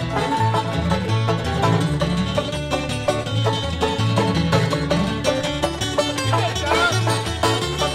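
Bluegrass band playing an instrumental, with banjo picking to the fore over guitar and a bass line on a steady beat.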